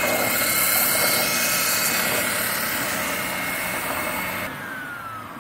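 Oscillating spindle sander running, its abrasive drum sanding the inner running surface of a rotary-engine rotor housing, with a steady whine. About four and a half seconds in it is switched off and the whine falls steadily in pitch as the motor spins down.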